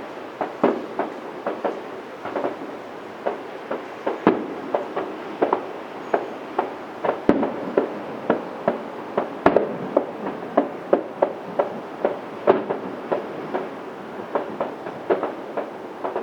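Fireworks shells bursting in a quick, irregular string of bangs, about two or three a second, each trailing off in a short echo. A few bursts stand out louder than the rest.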